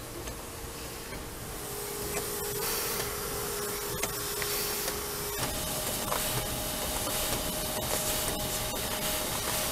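Sheet feeder of an industrial paper press running: a steady mechanical hum with air hiss from the suction feeder head and scattered sharp clicks as sheets are picked up. About halfway through, the hum jumps to a higher pitch.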